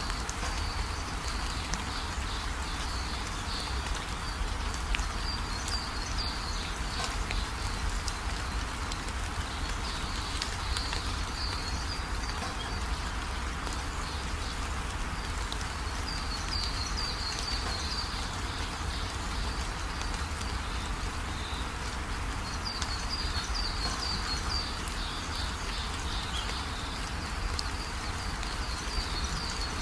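Forest ambience: a steady hiss over a low rumble, with bursts of high bird chirping every few seconds.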